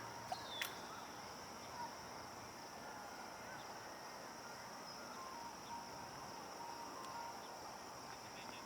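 Insects droning in one steady, high-pitched note, with a few faint bird chirps over it and a single sharp click just after the start.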